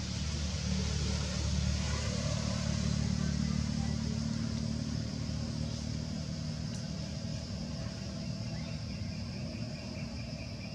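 A steady low engine hum, like a motor vehicle running nearby, strongest over the first few seconds and then slowly fading, over a steady high hiss.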